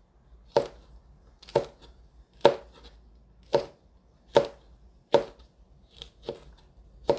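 Kitchen knife slicing a red chili pepper into thin rounds on a cutting board: separate sharp knocks of the blade on the board, about one a second.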